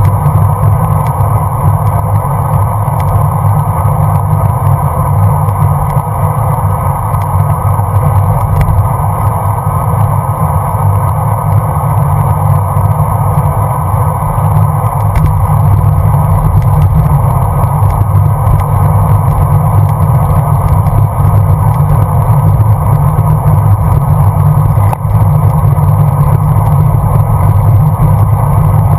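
Steady wind rumble buffeting a bike-mounted GoPro in its housing while the bicycle rides along at speed.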